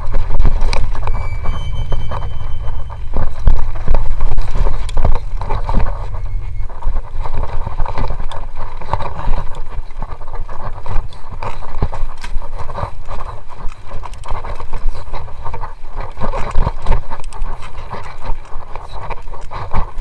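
Mountain bike riding fast over a rough dirt trail: a steady rattle and knocking of the bike and camera mount, with wind rumbling on the microphone that is heaviest in the first few seconds. A brief high squeal comes about a second in.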